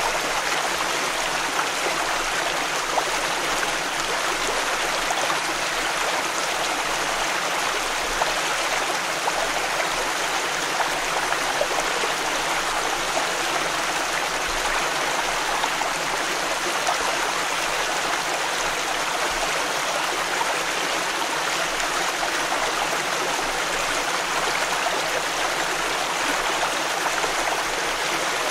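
Close-up of a small stream flowing steadily, with splashing and gurgling water over a constant rush.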